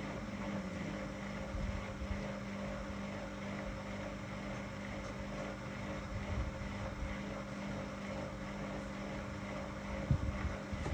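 Whirlpool FSCR 10425 front-loading washing machine running: a falling motor whine dies away right at the start as the drum slows, leaving a steady low hum over a noisy background. A few low knocks come near the end.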